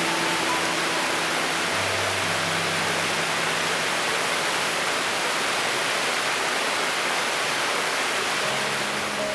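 Mountain stream rushing over boulders: a steady, unbroken rush of whitewater.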